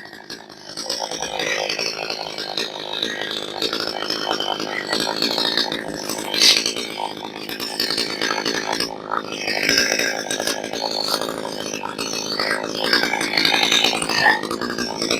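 62cc two-stroke chainsaw cutting into a stringy bark gum log, the engine running under load. The sound builds about a second in and holds steady, with a brief dip about nine seconds in.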